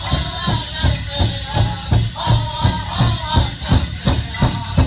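Powwow drum group playing a steady beat on a big drum, about three strokes a second, with high-pitched singing over it. The jingling of bells and metal cones on dancers' regalia runs through it.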